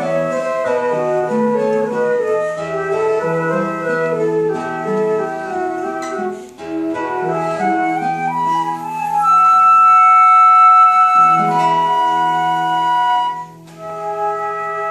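Two concert flutes playing a duet in harmony, their melodic lines moving over a lower held part. About halfway through a long high note is the loudest moment, and near the end the music breaks off briefly before a new held chord.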